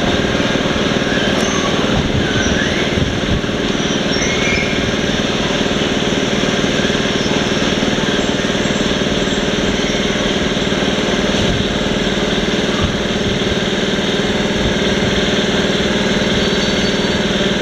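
Steady mechanical hum and whir of standing electric train equipment at a railway station, holding a constant drone throughout.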